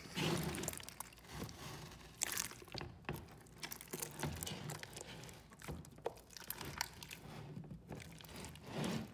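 Hands squishing and kneading a large batch of sticky glue-and-borax slime in a plastic tub: irregular wet crackles and small pops as the slime is pulled and pressed.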